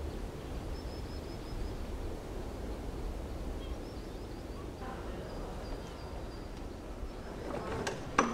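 Outdoor ambience: a steady low rumble with faint, high bird chirps now and then. Near the end come a few clicks and one sharp clack from a large paneled wooden door.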